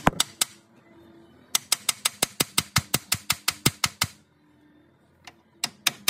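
Ratchet wrench clicking in quick, even runs of about eight clicks a second, working a nut on a car's steering track rod end. There are a few clicks at the start, a long run of a couple of seconds, a short pause, then a second run near the end.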